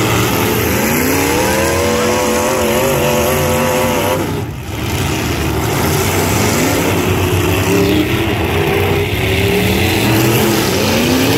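Demolition-derby pickup truck engines revving hard, pitch climbing and falling as the trucks accelerate and back off, over a dense mix of several engines running at once. The sound dips briefly about four and a half seconds in.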